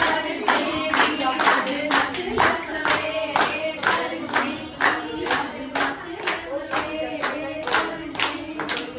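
Voices singing a Punjabi folk song together, to a steady beat of hand clapping, a little over two claps a second.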